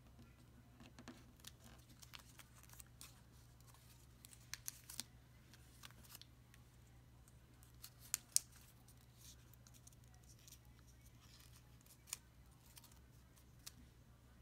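Origami paper being folded and creased by fingers: quiet rustling with scattered sharp crackles, a cluster about four to five seconds in and the loudest snaps around eight seconds in.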